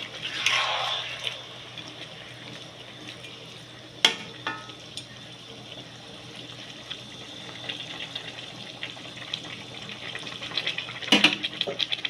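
Chicken pieces cooking in a pan with a steady sizzle. A splash of water hisses briefly as it hits the hot pan near the start. There is a single sharp knock about four seconds in, and a spoon clatters against the pan near the end.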